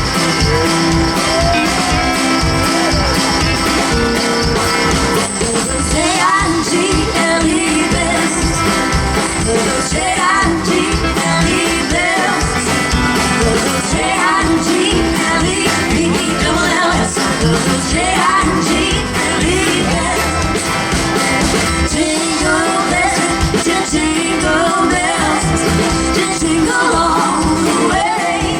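Live country-rock band playing an upbeat song with a steady drum beat and guitars; a woman's lead vocal comes in about six seconds in.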